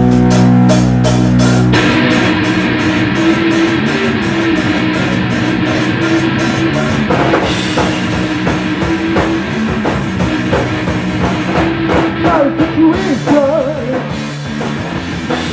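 A rock song played by a full band with drum kit and guitars. A held low chord over fast, even drum hits gives way about two seconds in to the full groove, and a singing voice comes in near the end.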